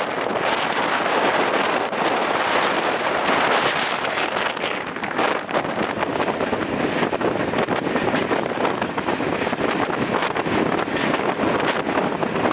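Steady, loud wind rush on the microphone from a camera held out of a moving passenger train, mixed with the train's running noise.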